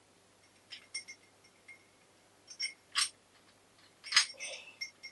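Small metal parts clicking and clinking together as they are handled, a handful of sharp taps with the two loudest about three and four seconds in.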